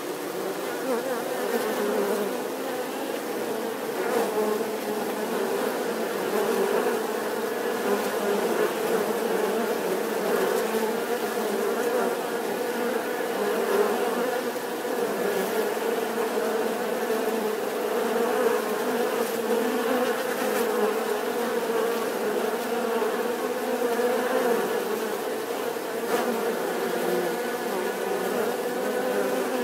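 Many bees buzzing together in a steady, dense hum that never breaks.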